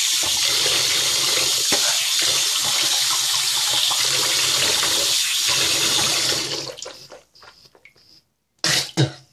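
Tap running steadily into a sink, shutting off about six and a half seconds in; a couple of short, loud sounds follow near the end.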